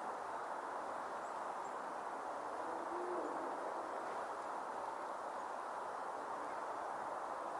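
Steady outdoor ambient noise of a snowstorm, with one short, low hoot-like call about three seconds in.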